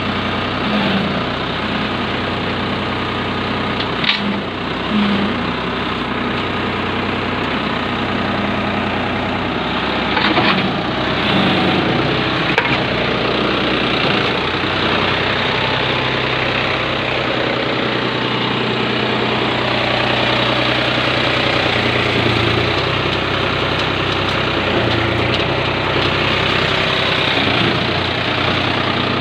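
New Holland tractor's diesel engine idling steadily, with a couple of brief knocks about four and ten seconds in.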